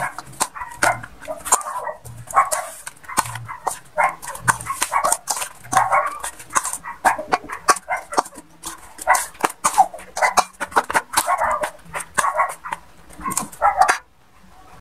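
A dog barking over and over, about two short barks a second, with sharp clicks mixed in. The sound cuts off abruptly near the end.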